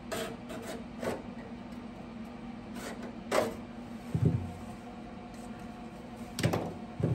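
Light knocks and clatter of sheet metal and hand tools being handled, with a duller thump about four seconds in, over a steady low hum.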